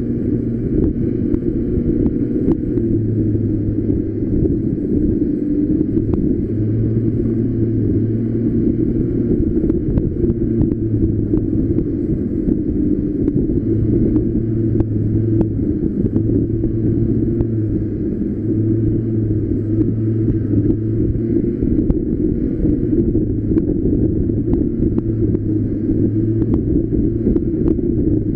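Street go-kart driving along: a steady low rumble, with a deeper hum that comes in and drops away every couple of seconds.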